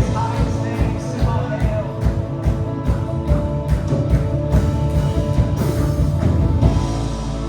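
Live worship band playing a rock-style worship song, with a steady drum beat over bass, guitar and keys. Near the end the beat drops out, leaving a held low chord.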